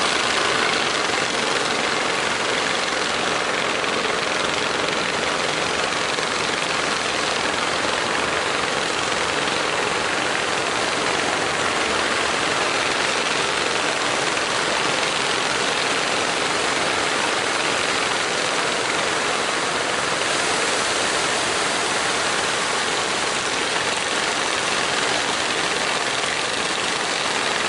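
Steady rushing roar of waves breaking at a river mouth, mixed with the running engine of a wooden fishing boat crossing the surf.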